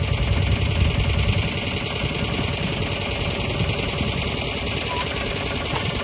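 An engine running steadily with a fast, even low pulse.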